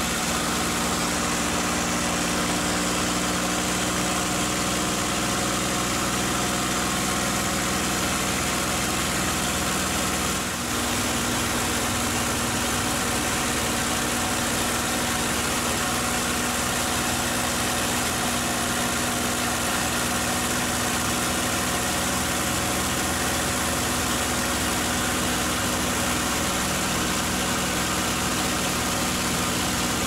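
P-51D Mustang's Packard Merlin V-1650-7 V12 engine running steadily in flight, heard from inside the cockpit over a constant rush of airflow noise. About ten seconds in the level dips briefly and the engine note shifts slightly, then holds steady again.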